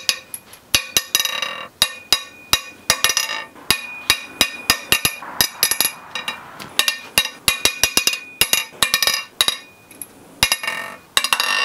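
Ratchet wrench clicking in quick runs while loosening the cylinder head bolts of a Honda K20 engine, with sharp metallic pops as the tight bolts break free.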